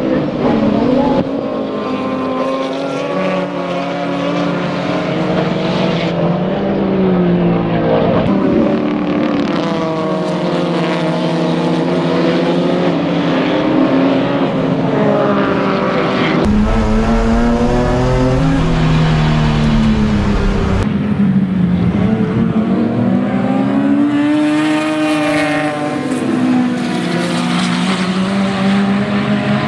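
A pack of historic touring race cars running hard on the circuit, several engines overlapping, their notes rising and falling as they accelerate and change gear. A little past halfway a deeper, heavier engine sound comes in suddenly.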